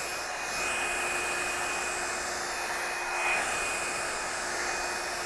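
Revlon One Step hot-air brush hair dryer running steadily, a constant whoosh of air with a thin high whine, as it is worked through a section of hair.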